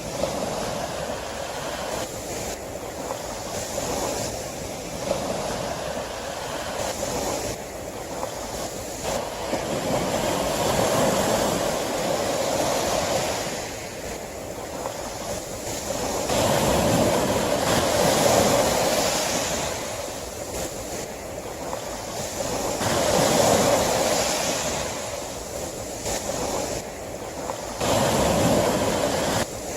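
Sea waves washing ashore, the surf swelling and falling back every five or six seconds.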